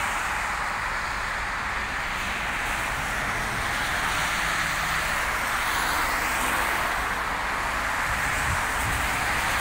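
Road traffic on a wet road: a steady hiss of tyres on rain-soaked asphalt, swelling and easing as cars go by.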